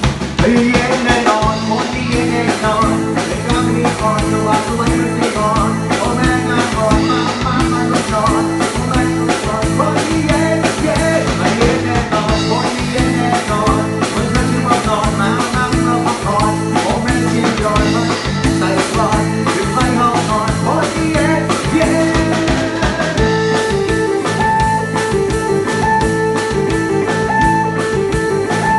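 Live band playing a rock-blues song: a man singing into a microphone over drum kit and guitar. About 23 seconds in, the sung line gives way to long held notes.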